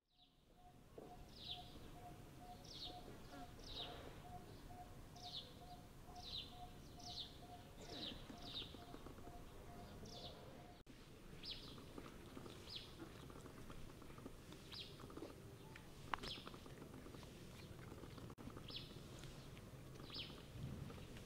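Faint birdsong: a short high chirp repeated about once a second. Through the first half, a lower note repeats evenly about twice a second, then stops.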